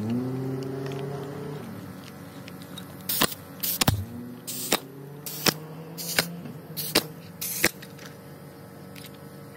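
Pneumatic coil roofing nailer firing a string of sharp shots, each with a short hiss of air, roughly every half second to a second, as it nails down a ridge vent. A motor hums in the background, rising in pitch at the start.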